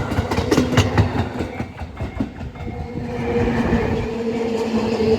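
Tobu 8000 series electric train pulling out, its wheels clacking over rail joints in a quick run of clicks for the first couple of seconds, then a steady hum as it moves off.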